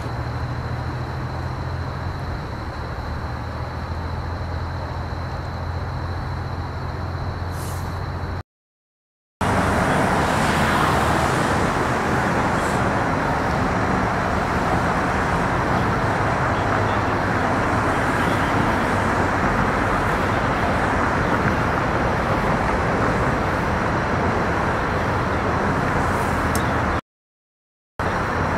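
Steady drone of road traffic from elevated highway bridges, quieter at first, then louder and fuller after a brief gap of silence about eight seconds in, with another short silent gap near the end.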